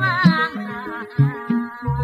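Sundanese gamelan accompaniment for a wayang golek play: a pesinden's wavering, vibrato-laden singing trails off about half a second in, leaving a steadier wavering melodic line over low pitched notes and drum strokes.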